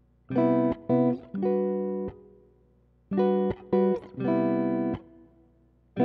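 Background music: a guitar playing short phrases of plucked chords, each phrase stopping sharply before a pause of about a second.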